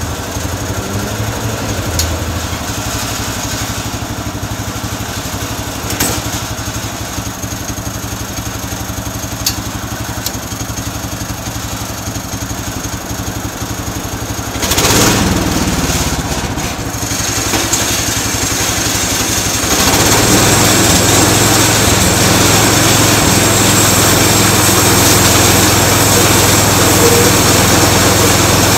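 Small engine of a homemade bandsaw mill running steadily, with a few sharp ticks in the first ten seconds. About fifteen seconds in there is a brief louder stretch, and from about twenty seconds in the engine runs louder and steady as the mill is set to cut a slab.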